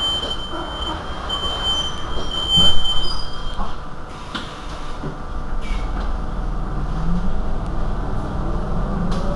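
Street noise around a standing Irizar i2e electric bus, with a steady low hum. A high electronic tone sounds in long beeps and stops about three and a half seconds in. A low rising tone comes in near the end.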